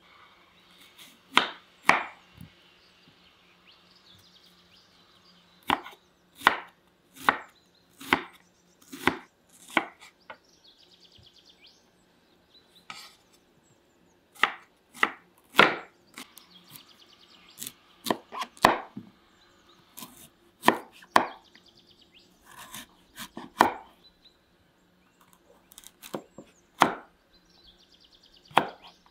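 Kitchen knives cutting red onion and carrot on wooden cutting boards: single sharp knocks of the blade on the board, coming in uneven clusters of a few strokes with pauses of a few seconds between.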